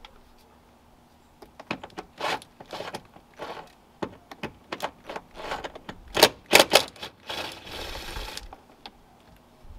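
Hand ratchet clicking in irregular runs as the 10 mm screws holding the A-pillar trim panel are backed out. The clicking starts about two seconds in, with a longer rasping run near the end.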